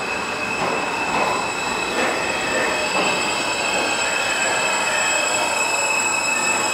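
New York City subway train running through the station, its steel wheels squealing on the rails in steady high-pitched tones over a continuous rumble.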